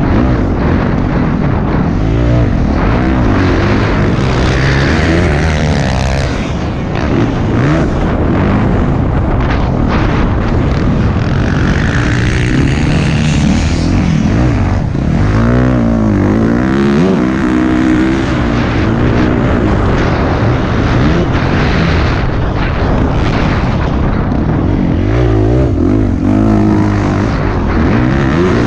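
Dirt bike engine ridden hard around a motocross track, the revs repeatedly climbing and dropping through gear changes and throttle chops, with heavy wind noise over it.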